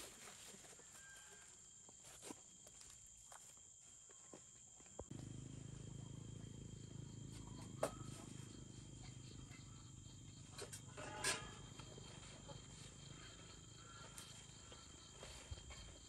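Night insects trilling steadily at a low level, a high continuous chirring. A low hum starts suddenly about five seconds in, and a few faint knocks come from handling things.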